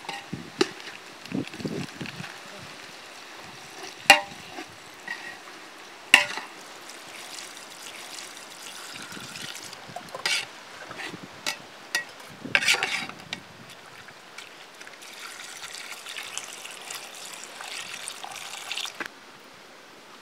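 A long metal ladle stirring wet goat intestine pieces in gravy in a large aluminium pot, the liquid sloshing and the ladle knocking sharply against the pot a dozen or so times.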